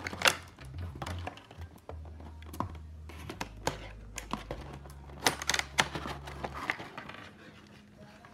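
Hands handling plastic-wrapped toy parts: clear plastic packaging crinkling and a run of light clicks and taps of plastic pieces against each other and the cardboard.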